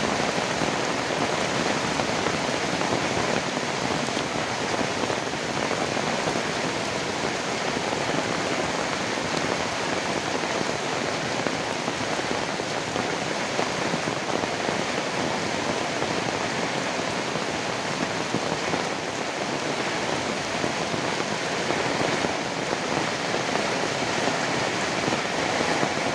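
Heavy rain falling steadily, a dense even patter of drops on surfaces with no letting up.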